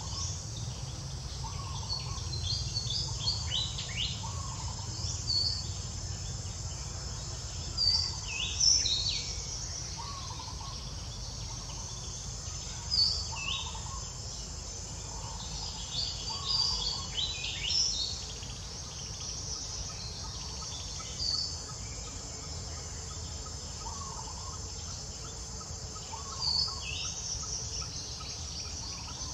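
Outdoor ambience of scattered short, high bird chirps over a steady high insect drone, with a few calls standing out louder.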